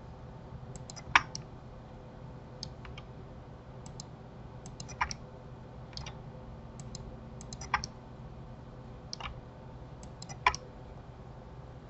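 Computer mouse and keyboard clicking at irregular intervals, a dozen or more short sharp clicks, over a faint steady hum.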